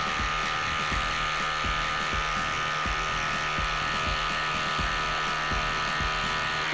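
DeWalt Atomic 20V compact impact driver hammering steadily as it drives a 6-inch lag screw into a log, over background music with a steady beat.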